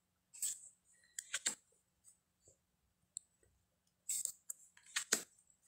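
Tarot cards being handled and flipped over: short slides and sharp taps of card stock in two clusters, about half a second to a second and a half in and again around four to five seconds in.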